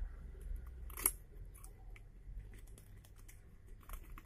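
Small plastic clicks and handling sounds as a two-port USB car-charger hub's clip is pressed and hooked onto the back of a car seat, with the sharpest click about a second in and a few more near the end.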